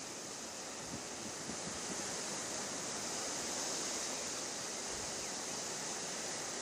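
Steady wind rushing through the trees, growing a little stronger about two seconds in, with low buffeting of wind on the microphone.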